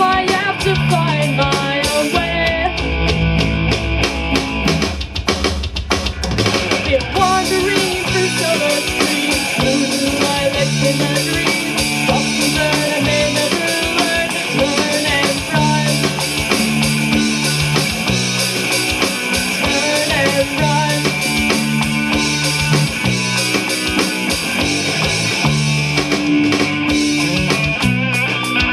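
Alternative rock song played by a full band: drum kit and electric guitars over a steady repeating bass line.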